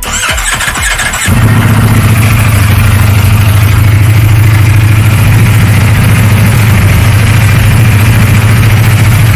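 Ducati Panigale V4's V4 engine cranked on the starter for about a second, then catching about a second in and settling into a loud, steady idle.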